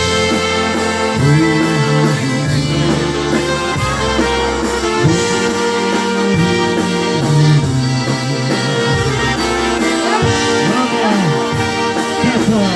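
Live polka band playing an instrumental opening, with accordion and brass over a bass line and a steady beat.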